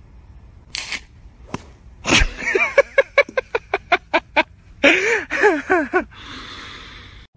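A drink can cracked open with a short hiss, a sharp click, and a loud hit. Then people laugh hard in quick repeated bursts, twice over, and a steady hiss follows near the end.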